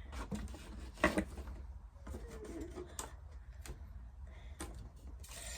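Light handling noises of craft work: a few separate clicks and taps, with a brief hiss near the end, over a low steady hum.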